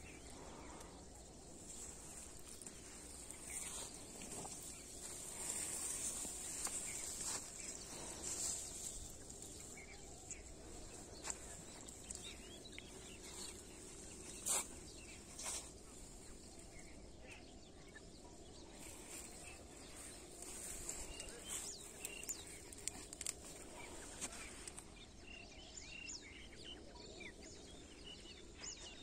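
Open farm-field ambience: a steady high-pitched insect hum, with birds chirping, more often near the end, and a few sharp clicks, the loudest about halfway through.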